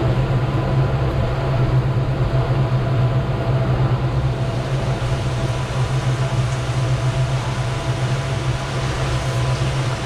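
Boat's twin outboard motors running steadily under way, a continuous low drone mixed with the rush of water and wind.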